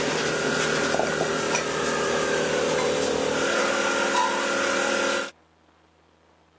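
Workshop machinery running with a steady whine and hum, with a few light metallic knocks; it cuts off abruptly about five seconds in, leaving near silence.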